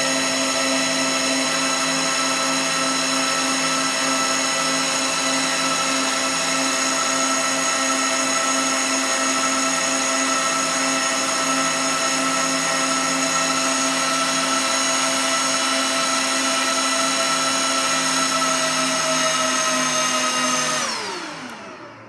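A motor-driven machine running at a steady speed, a whine of several tones over a low hum. About 21 seconds in it is switched off: all the tones slide down in pitch together as it spins down and fades.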